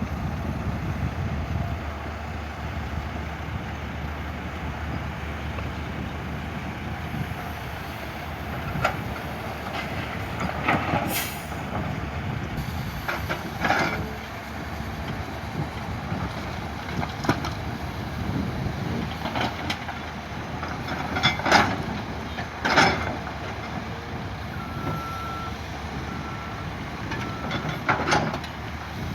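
Steady low rumble of a vehicle on the move, with a few sharp knocks scattered through and three short high beeps near the end.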